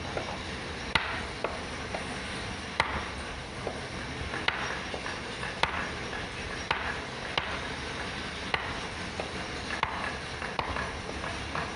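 A mallet tapping a small carving chisel into a wooden plaque to cut along drawn letter outlines. The taps are sharp and come irregularly, about once a second.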